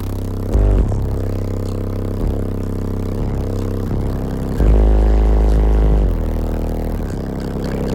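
Car audio bass demo: four Skar ZVX 18-inch subwoofers in a wall, driven by 3500-watt Skar amplifiers, playing a bass-heavy song at high volume. Long low bass notes, with the heaviest swell from about four and a half to six seconds in.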